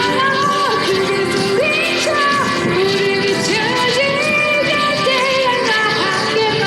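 A woman singing a pop ballad live over a backing track, holding and gliding between sustained notes.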